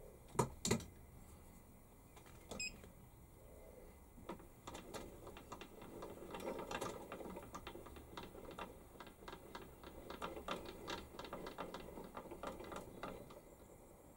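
Warco WM180 lathe carriage being wound along the bed by hand: two sharp clicks about half a second in, then a long run of quick, irregular ticking and rattling from the handwheel mechanism.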